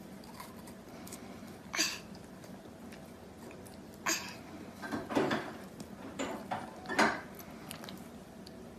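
A dog licking and mouthing a plastic baby teether: a handful of short wet smacks and clicks, the loudest about seven seconds in.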